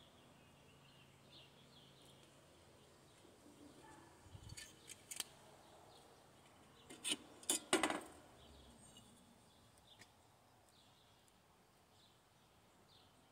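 Small stainless-steel camping-stove parts and hardware being handled on a table: scattered sharp clicks and clinks, loudest in a short cluster about seven seconds in.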